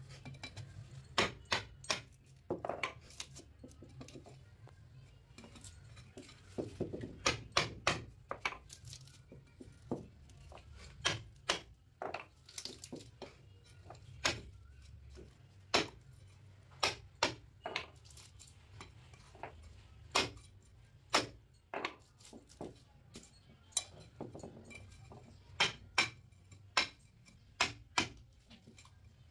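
Hammer striking a steel chisel to cut the copper end winding off an air-conditioner compressor motor's stator. The metallic clinks come at an irregular pace, often two or three in quick succession.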